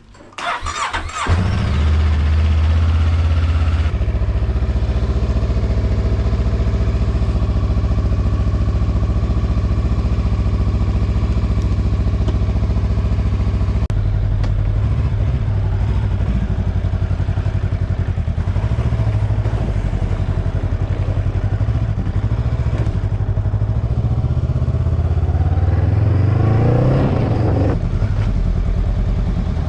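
Honda Rebel 500's parallel-twin engine being started, catching within about a second and a half, then idling steadily, with a brief rise in revs near the end.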